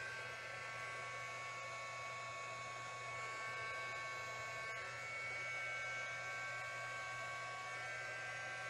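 Small handheld electric air blower running steadily: a motor whine over a rush of air and a low hum, its flexible nozzle blowing wet acrylic paint across the canvas. The whine shifts slightly in pitch about halfway through and again near the end.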